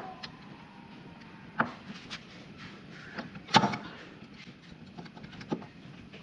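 Scattered clicks and knocks of hand tools and brake caliper parts being handled during disc brake reassembly, with the loudest knock about three and a half seconds in.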